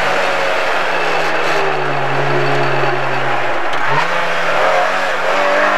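Rally car engine heard from inside the cockpit while driving a stage. The engine note is steady at first, sinks slowly, then jumps up in pitch about four seconds in.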